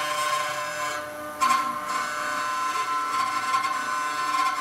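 CNC router spindle running with a steady high whine while its end mill cuts Cibatool tooling board. The cutting noise drops off about a second in and comes back sharply half a second later.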